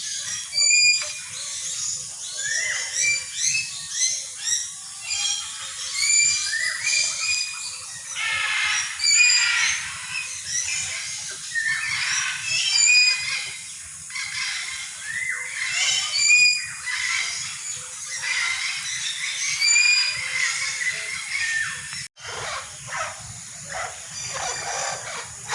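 Several birds calling at once: a busy chorus of shrill, repeated squawks and chirps. The sound cuts out briefly near the end and then carries on.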